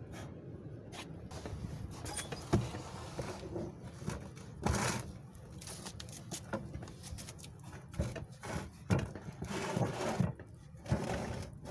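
Handling noise on the wooden fuigo box bellows: irregular knocks, scrapes and rustles as its wooden parts are moved by hand.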